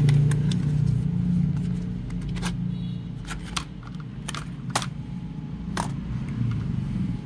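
Scattered light clicks and taps of a keyboard's cable and packaging being handled during unboxing, over a steady low rumble.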